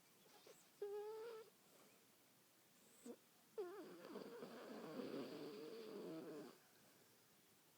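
A dog snoring: a short pitched snore about a second in, then a longer snore with a wavering pitch lasting about three seconds.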